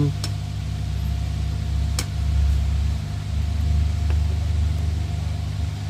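A steady low mechanical hum, with two light clicks.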